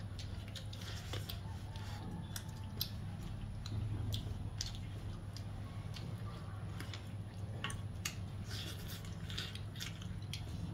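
Close-up eating sounds: rice and curry squished and mixed by hand on a metal plate, with mouthfuls chewed with many small wet smacks and clicks. A steady low hum runs underneath.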